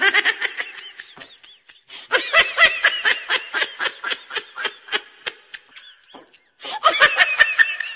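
Laughter sound effect: bursts of rapid, high-pitched laughing in three runs, the middle one the longest, with short breaks between them.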